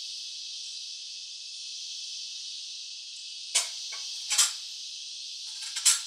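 A steady, high-pitched insect chorus, with three short, sharp clicks or snaps in the second half.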